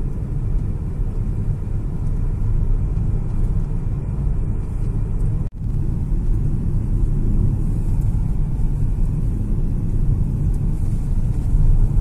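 Steady low rumble of road and engine noise heard inside a moving car's cabin. It cuts out for an instant about halfway through.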